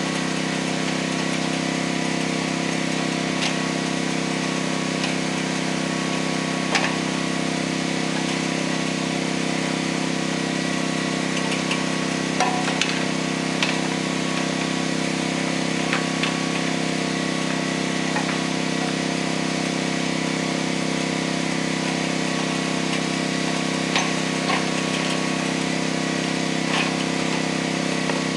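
An engine running steadily at one constant speed throughout, with a few light knocks and clicks scattered through it.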